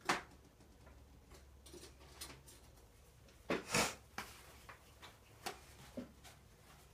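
Handling noises at an oil-painting easel: a sharp tap near the start, a louder double rustle of crumpled paper towel a little past halfway, then a few light clicks and taps.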